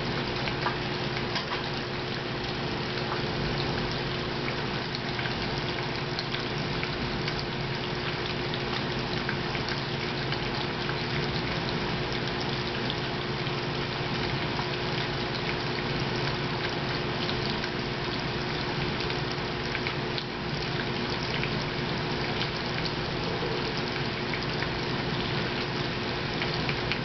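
Aquarium water circulation running: a steady rush of splashing, bubbling water with a continuous pump hum underneath.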